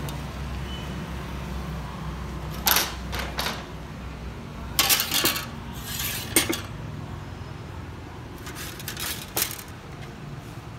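Thin sheet-steel practice sword blades clinking and rattling against each other and the workbench as they are handled, in four short clusters of clatter.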